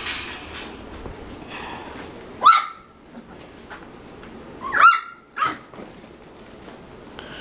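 Three-and-a-half-week-old puppies giving short, high-pitched yips while playing: one about two and a half seconds in, a doubled yip a couple of seconds later, and a softer one right after it.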